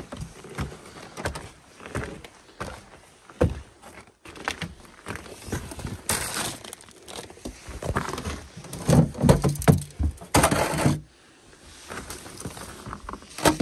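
Footsteps in snow and on snow-covered wooden steps, with scattered knocks and thuds, and louder rustling stretches about six seconds in and again from about nine to eleven seconds in.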